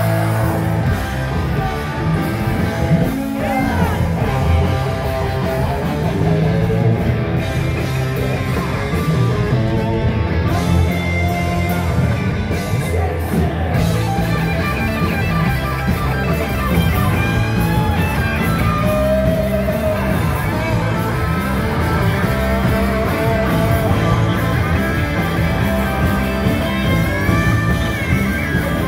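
A sludge-metal band playing live: loud electric guitars and a drum kit, with no break in the music.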